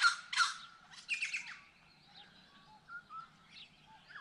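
Birds calling: a run of loud, harsh, rapidly repeated calls that breaks off about a second and a half in, then scattered faint chirps.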